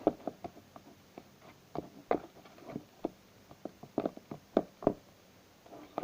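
A hand stirring a wet, sticky glue-based slime mixture in a bowl, making irregular short sticky clicks and squelches, several each second.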